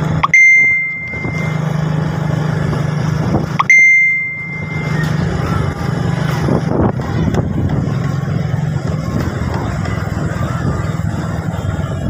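Motorcycle engine running steadily while riding, with two loud, clear bell-like dings about three and a half seconds apart, each ringing out for about a second.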